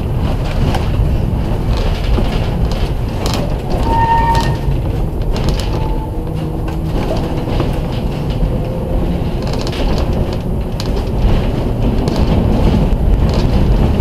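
Historic streetcar Car 23 running along its track: a steady low rumble from the wheels on the rails, with frequent irregular clicks and rattles and a short high squeal about four seconds in.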